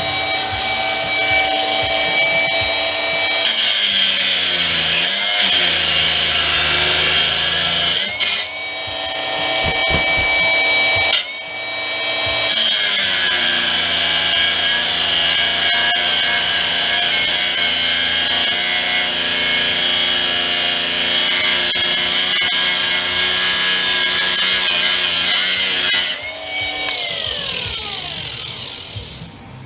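Handheld electric power tool running under load, cutting into the table's metal, with a steady motor tone and a harsh hiss. It stops and spins back up twice, then is released and winds down, its pitch falling, near the end.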